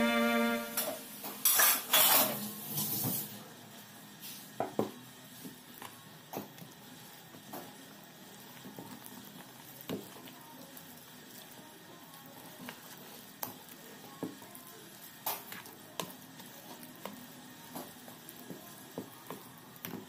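Wire whisk stirring a thick flour batter in a plastic bowl. A few louder scraping strokes come in the first few seconds, then light irregular clicks and taps of the wires against the bowl.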